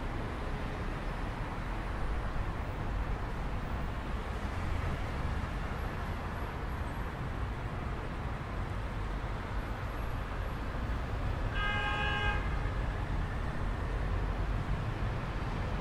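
Steady low rumble of outdoor city noise, with one short car-horn-like toot about twelve seconds in. No ringing bell tone carries through.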